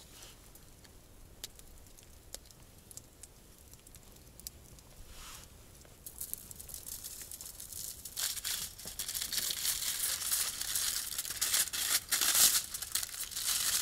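Crinkling and rustling of something being handled: faint scattered clicks at first, then a dense, crisp crackling that grows louder about six seconds in.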